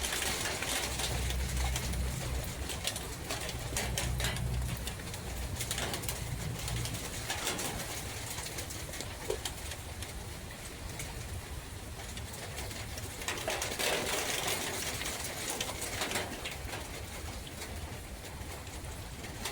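Forest ambience of wind and rain as a steady hiss, with a dove cooing. A low rumble sits under the first several seconds, and the hiss swells twice near the end.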